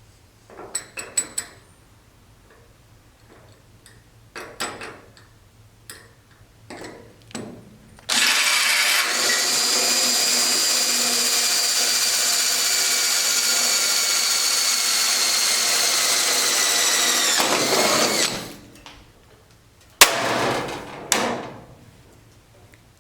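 Power drill running steadily for about nine seconds while drilling a hole in the tool box, its pitch sagging slightly under load before it cuts off and spins down. Light handling clicks come before it, and a sharp clack with rattling follows a couple of seconds after.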